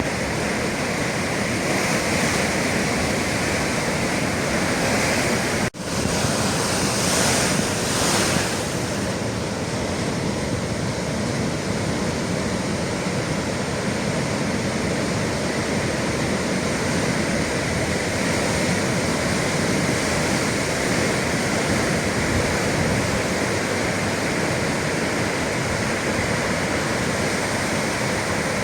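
Atlantic sea waves breaking and washing in a steady rush, with some wind on the microphone. A louder surge of surf comes about seven to eight seconds in, just after a brief dropout in the sound.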